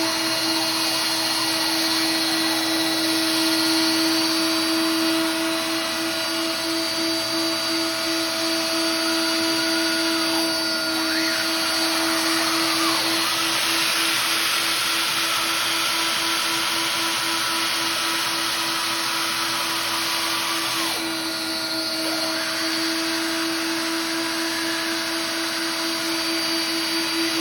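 Vacuum cleaner running continuously on upholstery, a steady motor hum over a rushing airflow. Its tone shifts briefly about a third of the way in and again about two thirds of the way through.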